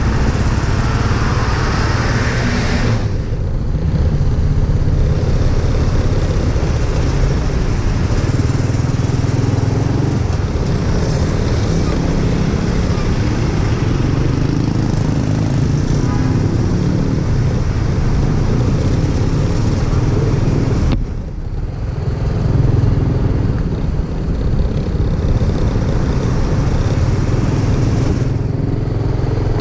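Motorcycle engine running steadily under way, with rushing wind and road noise over it; the sound drops off briefly about two-thirds of the way through, then picks up again.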